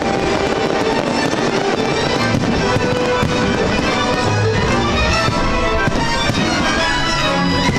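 Instrumental music playing, with firework shells bursting and crackling over it.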